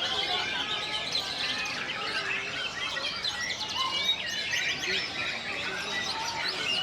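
Many caged white-rumped shamas (murai batu) singing at once, a dense, unbroken tangle of overlapping whistles and chirps.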